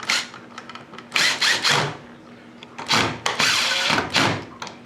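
Cordless drill/driver running in several short bursts, driving the outlet's mounting screws into the electrical box, with a longer run near the end.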